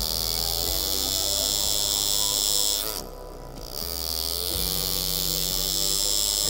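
Air-powered engraving graver buzzing as it cuts scrollwork into a stainless steel knife handle. It runs in two stretches of about three seconds each, with a short pause just before the middle.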